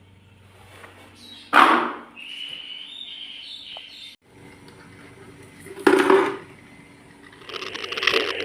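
A dog barks twice, about four seconds apart. Near the end a rushing hiss builds up.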